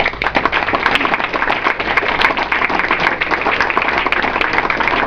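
A small crowd of people applauding, with dense, steady clapping.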